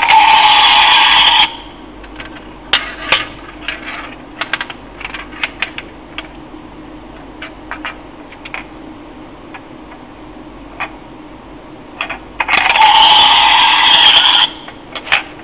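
Toy golf-ball alarm clock's electronic alarm sounding in two loud bursts, about a second and a half at the start and about two seconds near the end. In between, its small steel ball clicks and rattles against the plastic golf course and clear dome as the toy is tilted.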